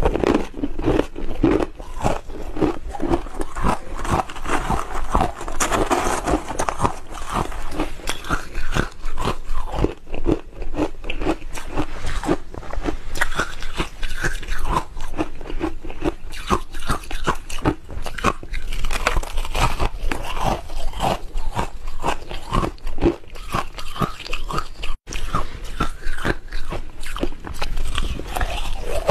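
Hard frozen ice being bitten and crunched, heard close up on a clip-on microphone: a continuous run of rapid, irregular crackly crunches as chunks are chewed.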